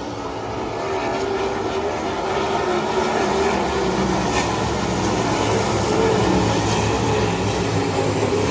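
Sprint car engines running around a dirt oval: a pack of cars making a steady, wavering drone that grows gradually louder.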